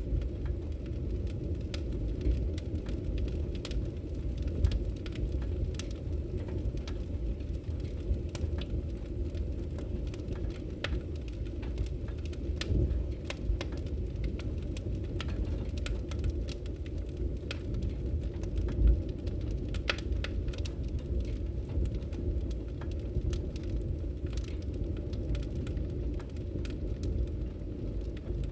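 Wood fire crackling in a fireplace: a steady low rumble of burning, with scattered sharp pops and crackles throughout.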